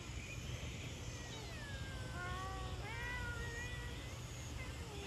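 Domestic cats meowing. A long, falling meow starts about a second in, and further meows overlap it and follow a couple of seconds in. A low, steady rumble runs underneath.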